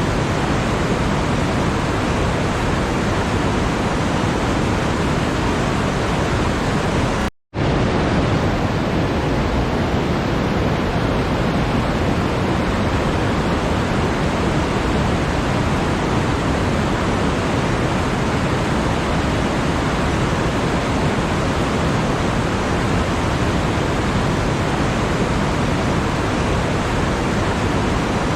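Steady, even rushing noise with no distinct events; it cuts out to silence for a moment about seven seconds in.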